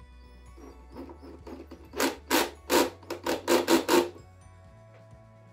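Cordless drill-driver driving a screw through a chrome stair-nosing profile into an MDF step, running in about eight short, loud bursts over two seconds before it stops with the screw home.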